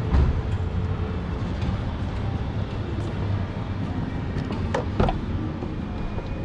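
Steady low hum of a busy showroom, with two sharp clicks close together about five seconds in as the Nissan Dayz's front door is unlatched and swung open.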